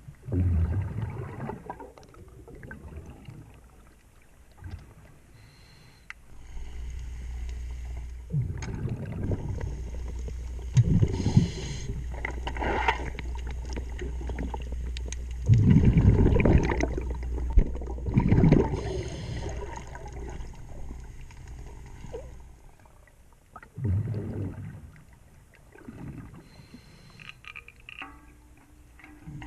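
Underwater sound of a scuba diver's breathing: bursts of exhaled bubbles gurgling from the regulator every few seconds, over a steady low hum.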